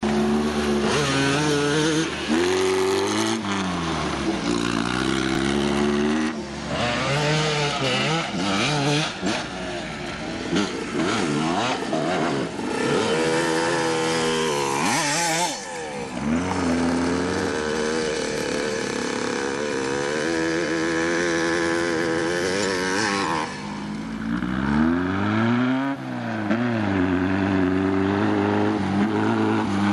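Sandrail dune buggy's VW engine revving up and down over and over as it accelerates and lets off, its pitch rising and falling, with one fast rise and fall near the end as it swings by.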